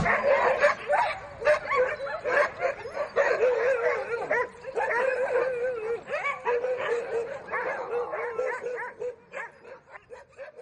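A group of huskies howling and yipping together, several voices with wavering pitch overlapping, dying away near the end.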